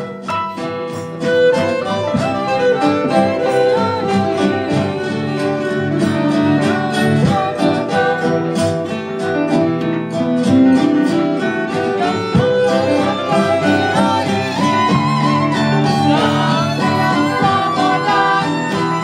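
Violin and acoustic guitar playing an instrumental passage together: the bowed violin carries the tune over the guitar's accompaniment.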